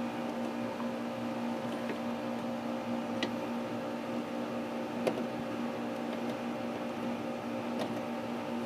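Steady electrical machine hum with a fixed pitch, with a few faint clicks of hands working on the breaker now and then.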